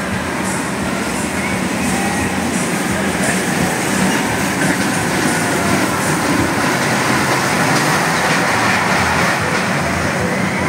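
Small funfair roller coaster's car train running along its steel track close by, a rolling rumble and rattle of wheels that grows louder through the middle.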